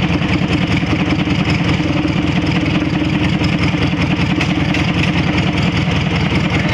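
Motorcycle engine running steadily at an even speed, with a fast, regular firing beat.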